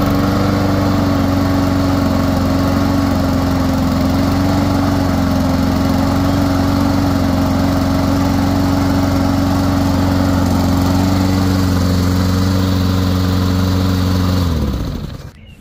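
Honda GCV160 single-cylinder overhead-cam engine on a Troy-Bilt TB130 push mower, running steadily at a fixed speed just after being pull-started. About fourteen seconds in it is shut off and winds down to a stop.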